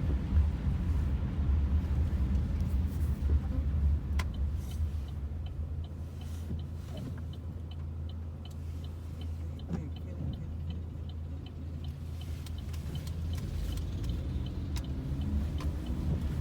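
Low, steady road and engine rumble inside a moving car's cabin, with a light regular ticking, about three a second, through the middle.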